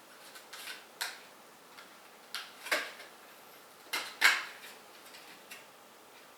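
Sharp clicks and taps from handling small computer parts while lining up a CPU for its socket: a scattered series of about eight, the loudest pair about four seconds in.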